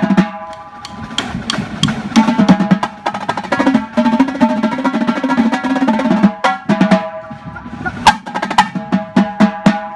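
A drum corps tenor section, several players on multi-tom marching tenor drums, playing a fast passage together with dense rolls and sharp accented hits. It drops quieter briefly about half a second in and again around seven and a half seconds.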